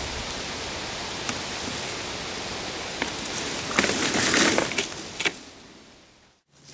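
Rustling of frost-killed sweet potato vines being cut and pulled out of a container, with a few sharp clicks. A louder burst of rustling comes about four seconds in, then the sound fades away.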